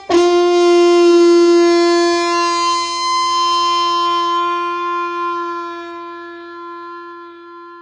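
Blues harmonica holding one long final note, which slowly fades out as the tune ends.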